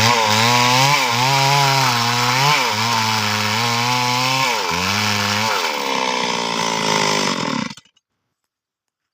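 Stihl two-stroke chainsaw running at high revs, its pitch dipping and recovering a few times as it loads in the cut through wood. The sound cuts off abruptly near the end.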